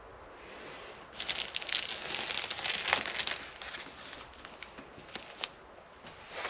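Plastic vapour-barrier film crinkling as a hand lifts and rubs it at the edge of the door panel, starting about a second in and lasting a couple of seconds. A few small clicks follow.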